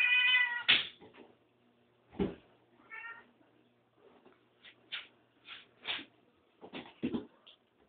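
Domestic cat meowing: one loud meow right at the start and a shorter, fainter one about three seconds in, with a few scattered soft clicks and knocks in between.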